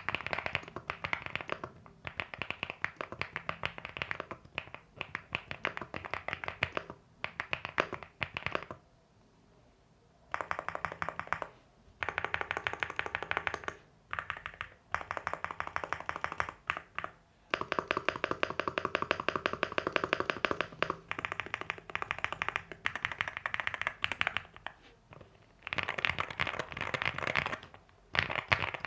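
Typing on a LEOBOG Hi8 mechanical keyboard with AKKO V3 Cream Yellow Pro linear switches: fast runs of key presses in bursts, with short pauses between them and a longer pause about nine seconds in.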